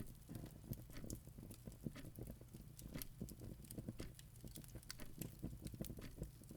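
Quiet background ambience: irregular light crackles and ticks, several a second, over a low steady rumble.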